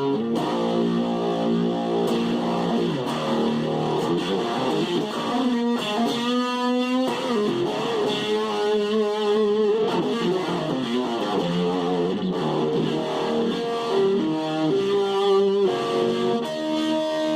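Stratocaster electric guitar on its neck pickup with the volume up, played through a Fuzz Face-style fuzz and a Mega-Vibe Uni-Vibe-style modulation pedal: a melodic single-note lead with bent, wavering notes.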